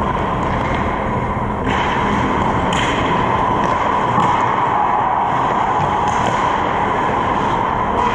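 Ice hockey game sounds on the rink: a steady rush of skate blades on the ice with a few sharp knocks from sticks or the puck.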